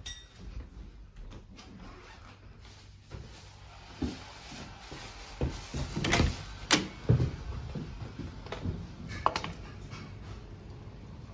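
A window handle being turned and the casement window pulled open: a few sharp clicks and knocks, loudest about six to seven seconds in, with lighter handling knocks before and after.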